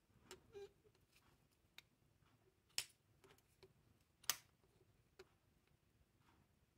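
Faint clicks and taps of a digital caliper's steel jaws being slid and closed against a banded agate snuff bottle, with two sharper clicks about three and four seconds in.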